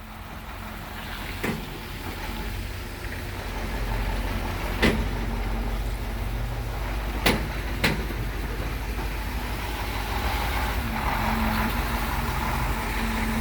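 A steady heavy-engine rumble of construction-site or street machinery, with four sharp knocks: two single ones early on and a quick pair in the middle. The rumble grows slightly louder toward the end.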